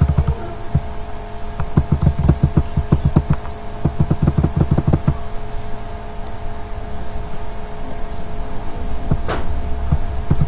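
Computer keyboard typing: runs of quick key knocks with a dull, thumpy low end, dense for a few seconds, then sparse, then picking up again near the end, over a steady electrical hum.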